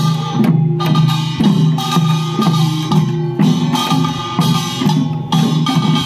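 Korean nongak folk dance music: a melody over a steady beat of sharp percussion strikes.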